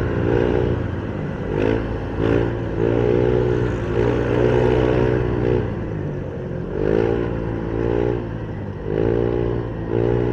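Motorcycle engine running in stop-and-go traffic, rising and falling in pitch with short throttle openings about every one to two seconds over a steady low hum.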